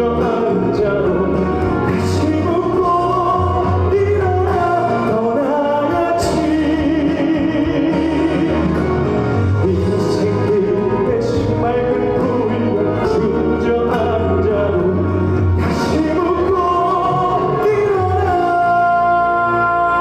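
Trot song performed with a backing track: a wavering melody with vibrato over a steady bass beat and regular cymbal hits, ending on a long held vibrato note.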